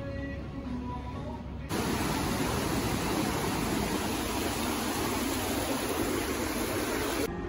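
Steady rush of splashing water from a large outdoor plaza fountain. It starts abruptly about two seconds in and cuts off just before the end. Before it there is only faint background sound.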